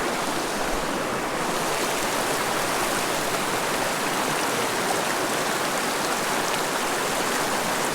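Small, shallow creek running steadily, a continuous even rush of water over rocks.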